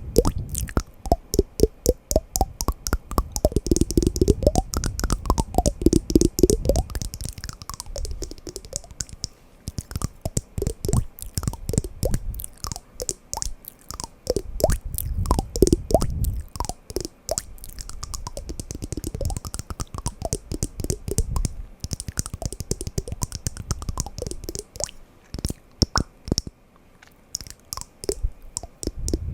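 Wooden blocks knocking and clacking together in quick, uneven strings of taps, with some knocks ringing briefly with a clear pitch.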